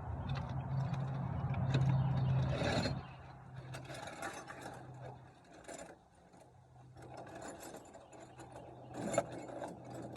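Metal tools clinking, rattling and scraping while working on the truck's alternator mounting, with a steady low hum that drops away about three seconds in.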